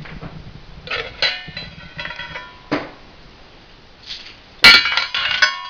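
Metal pot and utensils clanking as a child stirs and knocks them while cooking: a few separate clinks that ring on briefly, the loudest about three-quarters of the way through.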